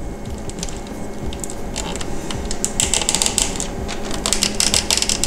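Rapid runs of small, sharp mechanical clicks from handling an instrument cluster's gauge needles and their plastic parts, sparse at first and coming in dense rattling bursts about halfway through and again near the end.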